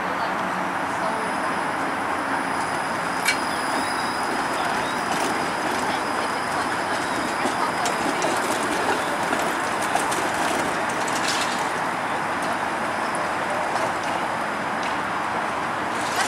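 Toronto TTC Flexity Outlook streetcar rolling past on its rails, a steady running and wheel noise with a few sharp clicks from the track and a faint high steady whine.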